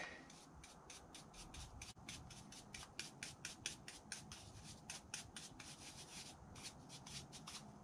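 Faint, quick brushing and scraping strokes, about four a second with short pauses, as a small brush works packed foundry sand out of the lettering of a 3D-printed plastic pattern.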